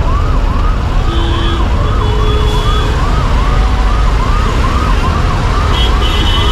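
Ambulance siren wailing in a fast repeating rise, about three sweeps a second, over the low rumble of traffic in a jam. Vehicle horns honk briefly about a second in, again about two seconds in, and once more near the end.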